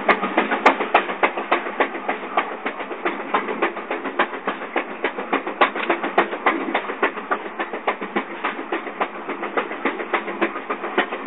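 Passenger train's wheels clattering over the rails, heard from the open rear platform of the last car: rapid, uneven clickety-clack over a steady rumble.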